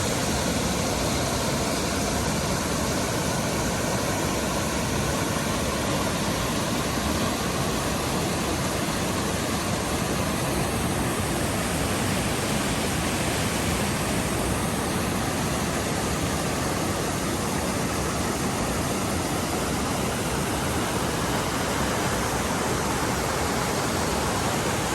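Waterfall heard from close in front: a loud, steady rush of falling water that does not change.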